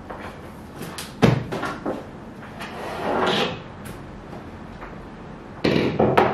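Cardboard box being handled and opened: a sharp knock about a second in, a scraping rustle of cardboard flaps about three seconds in, and a couple more knocks near the end.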